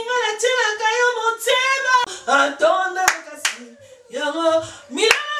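A woman singing, with a few sharp hand claps between the notes.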